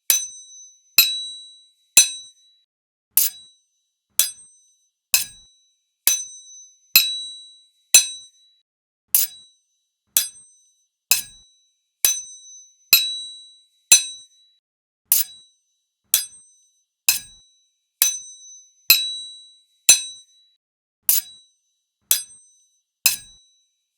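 Two sword blades struck together, one single ringing metallic clash about once a second. Each clash gives a bright, high ring that dies away quickly.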